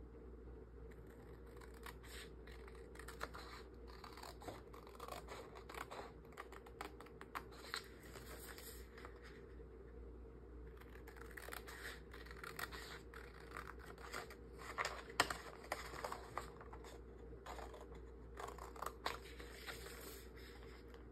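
Craft scissors cutting through paper: a faint run of short, quick snips that come in clusters, busier in the second half.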